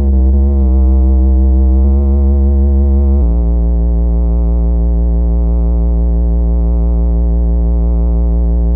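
Moog Werkstatt-01 analog synthesizer holding a fat, saturated bass note, its upper overtones slowly wavering. The note changes abruptly about three seconds in and then holds. The saturation comes from overdriving the synth's VCA with an external envelope fed into the gate.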